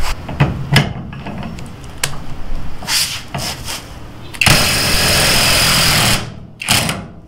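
A few light knocks, then a Hercules HCB84B 20V brushless 1/2-inch cordless impact wrench hammering for nearly two seconds to break loose a nut torqued to 175 ft-lb, followed by a short second burst. It gets the nut off but is struggling at this torque.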